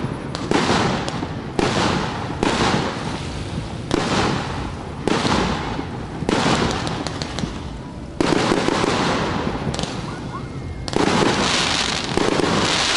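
Aerial fireworks bursting, about nine in a row, a second or two apart with a longer pause near the end. Each is a sudden bang that trails off over a second or so.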